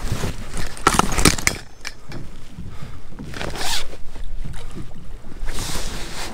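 Kayak paddle knocking against the kayak a few times about a second in, then splashing as the paddle blade dips into the water to pull in a downed shoveler duck, with a couple of splashes later on.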